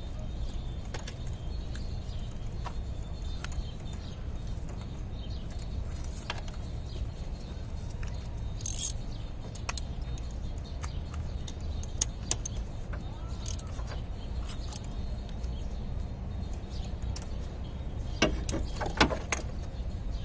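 Metal hand tools, a wrench and socket extension, clinking and clicking against engine parts in scattered strikes, with a louder cluster of clicks near the end, over a steady low background rumble.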